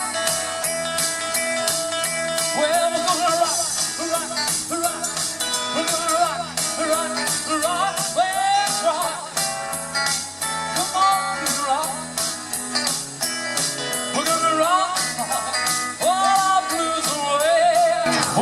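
Live rock and roll band playing an instrumental break: a lead guitar plays bent, sliding notes over a steady drum beat.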